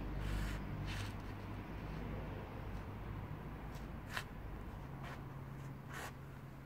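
Soft scuffs and taps of plush slippers and feet on a concrete patio, a handful of brief scrapes spread over several seconds, over a low steady hum.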